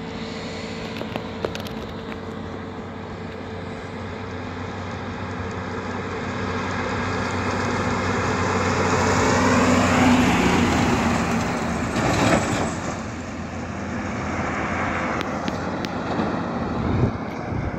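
Heavy diesel truck driving along a highway and passing close by. Its engine and tyre noise builds to a peak about ten seconds in, then the engine pitch drops as it moves away. Fainter traffic noise from more distant trucks follows.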